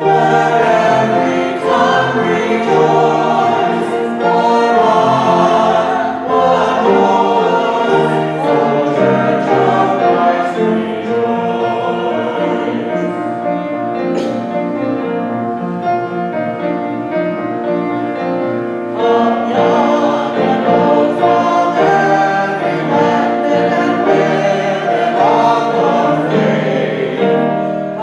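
A group of voices singing a worship song together with musical accompaniment, a little softer through the middle passage.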